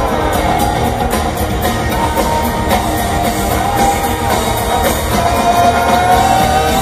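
Live band playing a song through a large arena sound system, heard from the audience, with a steady drum beat and guitars; a long held note comes in about five seconds in.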